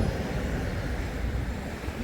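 Steady rumble of motor traffic, an even noise heaviest in the low end with no distinct events.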